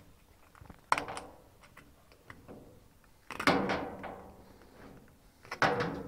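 Clicks and knocks of a small steel spring and needle-nose pliers against the plastic tub ring of a Fisher & Paykel top-loader as the spring is fed through a hole in the ring. Three louder knocks with a short ringing after each, about a second, three and a half seconds and five and a half seconds in, the middle one the loudest, with lighter ticks between.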